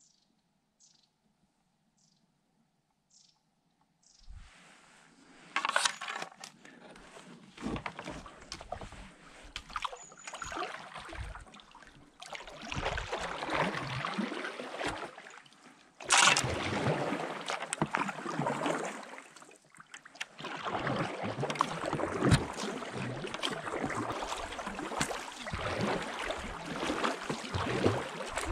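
Kayak paddling: paddle blades splashing into the water stroke after stroke, with water washing along the hull. It starts about four seconds in after near quiet, with one loud splash about halfway through.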